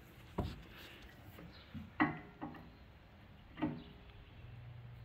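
Four short metallic clanks and knocks, the second the loudest, with a brief ringing after the middle ones. This is the engine hoist's lifting chain being re-hooked a link or two down to take the weight of the engine.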